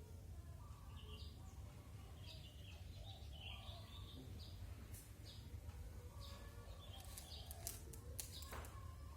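Faint bird chirps: short high calls repeating about once or twice a second over a low steady hum, with a few faint clicks near the end.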